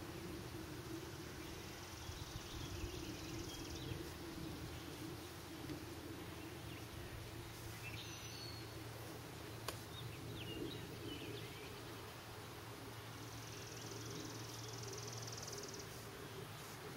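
Faint outdoor background: a steady low hum with two stretches of a thin high buzz, a few bird chirps about halfway through, and a single soft click.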